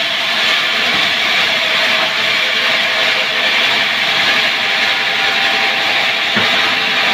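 Power wood saw running steadily as it cuts timber: a continuous loud rasping whine with no break.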